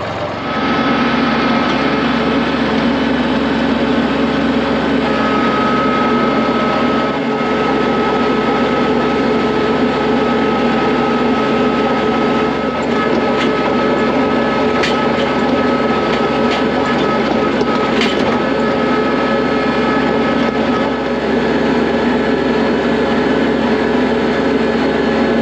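Kubota L3301 tractor's three-cylinder diesel engine running steadily at working speed, with a steady high whine over it; it comes up in level about half a second in.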